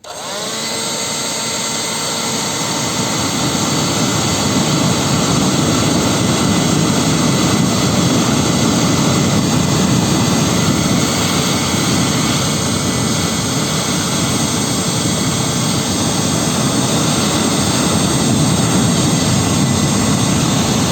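Leaf blower starting up with a rising whine, then running steadily at full speed, its air blast rushing.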